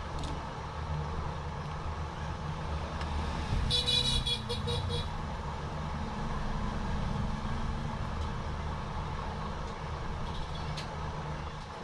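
Steady low rumble, with a vehicle horn sounding once about four seconds in for just over a second, its tone pulsing rapidly.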